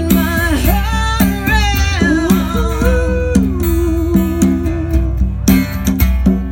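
Live acoustic cover with singing over strummed acoustic guitar and a hand drum. The voice holds one long note about halfway through and stops near the end, and the guitar and drum play on.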